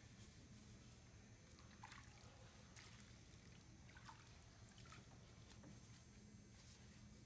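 Faint wet scrubbing of a sponge inside a tilted metal chocolate fountain base, with a few soft squishes and dribbles of chocolate-laden water, over a low steady hum.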